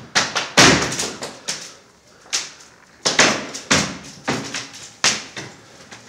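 Floor tiles cracking and popping loose from the floor: a string of irregular sharp pops and cracks, loudest about half a second in, as the tiles lift up on their own.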